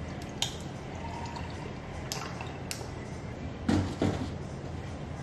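Liquid poured from a bottle over ice cubes in a glass, with a few light clicks from the ice. About three and a half seconds in come a couple of louder thuds.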